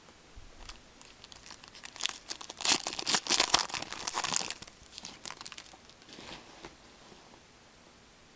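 Hockey card pack wrapper torn open and crinkled by gloved hands. The crackling is loudest from about two to four and a half seconds in, with a few softer crinkles after.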